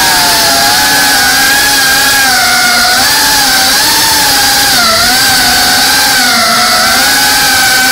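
FPV quadcopter's brushless motors and propellers whining steadily, the pitch wavering with throttle and dipping briefly about three and five seconds in.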